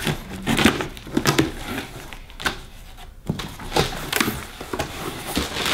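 A cardboard shipping box being pulled open, with brown packing paper crinkling and rustling in irregular bursts.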